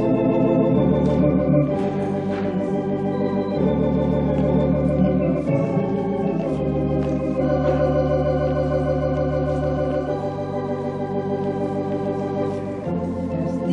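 Organ playing held chords over sustained bass notes that change every few seconds.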